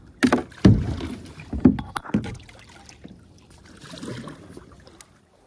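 Kayak paddle strokes: several sudden splashes and knocks in quick succession over the first two seconds, then a softer swish of water about four seconds in.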